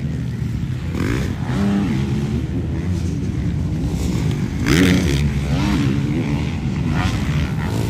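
Motocross bikes running hard on a dirt track, engine pitch rising and falling as riders accelerate and back off. The loudest moment comes about five seconds in, as a bike passes close.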